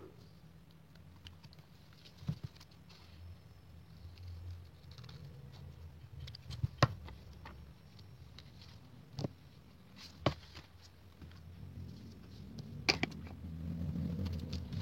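Hands handling packing materials: scattered light taps and clicks, with about five sharper knocks, over a low steady hum that grows louder near the end.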